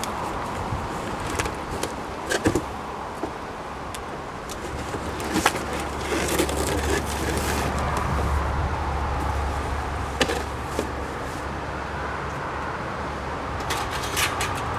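Cardboard packing box of a metal garden shed being opened and its metal parts handled: a few sharp knocks and clinks, the last cluster near the end, over a steady background rumble.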